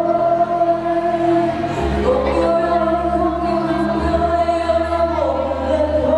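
Music: a singer holds one long note over bass accompaniment, the note dipping briefly about five seconds in and then returning.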